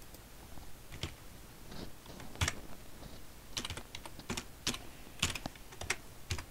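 Typing on a computer keyboard: irregular keystrokes, a few quick runs of keys in the second half, as figures are entered into a spreadsheet.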